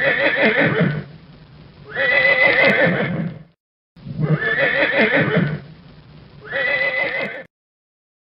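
Horse neighing: a recorded whinny played twice in a row, each time as two long neighs about two seconds apart.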